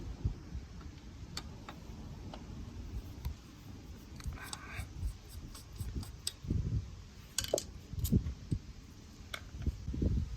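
Scattered small metallic clicks and clinks, with a short scraping rustle about four and a half seconds in and a few dull low knocks in the second half: tools and metal parts of a garage jack being handled.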